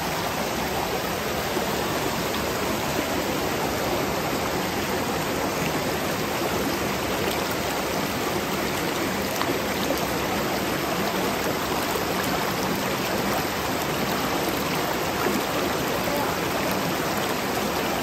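Rushing water of a waterfall and its stream: a steady, unbroken noise.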